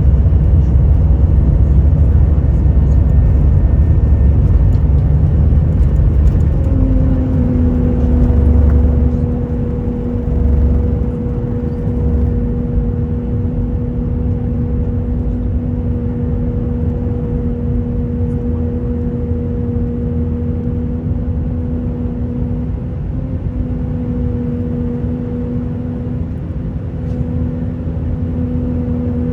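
Airbus A319 cabin noise: a heavy low rumble that eases off about ten seconds in. From about seven seconds in, a steady low hum with a higher overtone joins it and holds; this is the unexplained low humming that was recorded through the flight.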